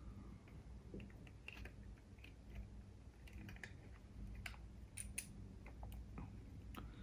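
Faint, scattered clicks and taps of small plastic and metal parts of an Akai GX-R88 cassette deck's tape transport being handled and fitted back together, a few sharper clicks about two thirds of the way in, over a low steady hum.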